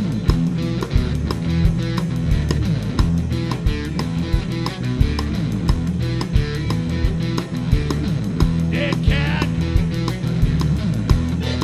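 Live rock band playing: a drum kit keeping a steady, driving beat under electric guitar and keyboard. A brief vocal line cuts in about nine seconds in.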